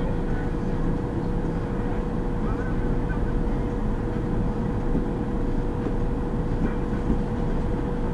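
City bus driving, heard from inside the cab: a steady low rumble of engine and road with a constant hum held at one pitch.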